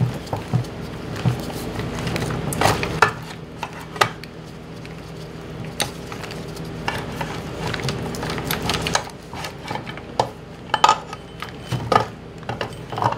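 Steel drive chain, sprockets and shafts of an NP231 transfer case clinking and clattering against each other and the aluminium case as they are worked out by hand, in irregular knocks.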